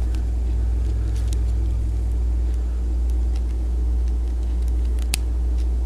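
Steady low hum, with a few faint clicks of small plastic toy parts being handled and pried apart by fingernail; the sharpest click comes about five seconds in.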